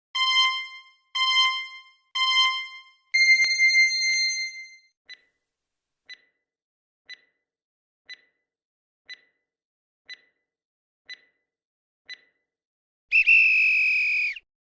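Electronic countdown timer sound effect: three short beeps a second apart and a longer fourth beep, then a tick once a second eight times, ending in a louder tone about a second and a half long that marks time up.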